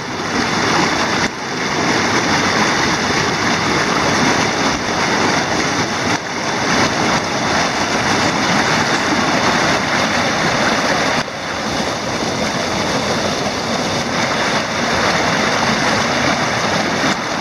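River water rushing over a block stone weir, cascading down its steps into the pool below in a loud, steady rush.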